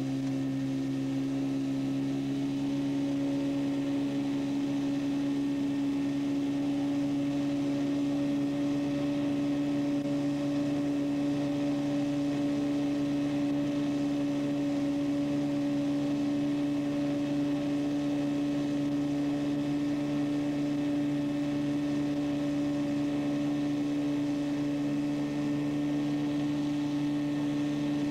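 Johnson two-stroke outboard motor running steadily with the boat under way, holding one even pitch throughout.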